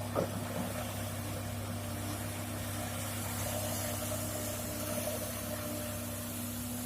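Heavy diesel engine running steadily with an even low hum, with a short knock just after the start.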